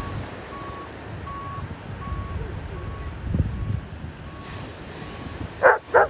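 Steady wind and surf, with a faint electronic beep repeating about every two-thirds of a second, like a vehicle's reversing alarm. Near the end a dog barks loudly.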